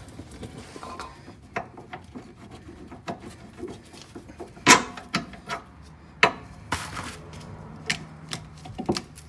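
A rusty lower shock-absorber bolt and the rear shock being worked loose by hand: scattered metallic clinks, knocks and scrapes, the sharpest knock about halfway through.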